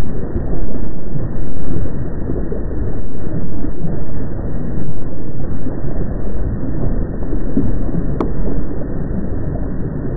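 Deep, muffled rumbling from an active volcano, surging and easing irregularly without pause. A single sharp click is heard about eight seconds in.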